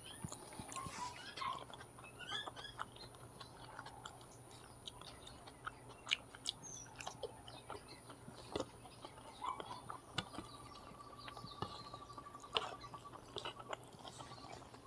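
Close-miked chewing and mouth sounds of someone eating fried egg, with irregular small clicks and smacks.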